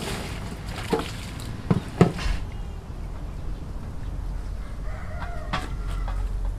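A rooster crowing once, about a second long, near the end. A few sharp knocks in the first two seconds are the loudest sounds, over a steady low hum.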